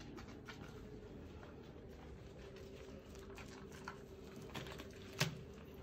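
Faint wet rubbing and patting of latex-gloved hands working soap lather into a kitten's fur in a sink. There are scattered soft ticks and one sharper click about five seconds in, over a faint steady hum.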